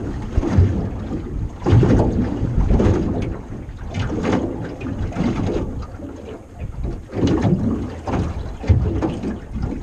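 Wind buffeting the microphone in an open aluminium boat, coming in irregular gusts.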